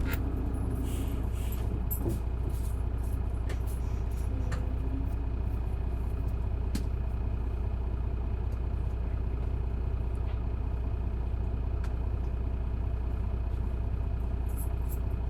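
Isuzu Erga city bus's diesel engine running steadily at an even low drone, without revving, heard from inside the passenger cabin, with a few light clicks.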